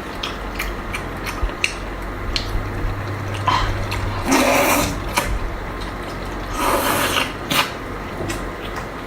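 A person eating up close: scattered wet mouth clicks from chewing, with two longer slurping sounds, about four and a half and seven seconds in.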